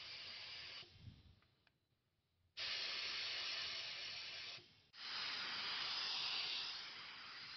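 Mini HVLP spray gun hissing as it atomises paint with compressed air, in bursts as the trigger is pulled and released: it stops just under a second in, starts again abruptly a couple of seconds later, and breaks off briefly near the five-second mark before carrying on.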